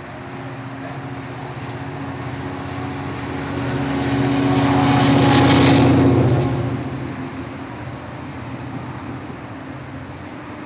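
A train passing: a steady engine hum that grows louder to a peak about five to six seconds in, then fades away.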